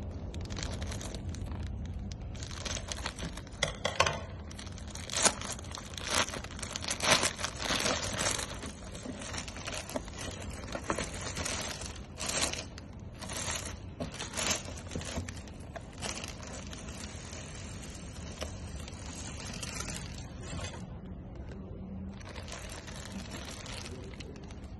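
Plastic courier mailer bag being cut with scissors and torn open, with loud crinkling and ripping of the plastic through the first half, then softer rustling as the contents and a plastic-wrapped shirt are handled.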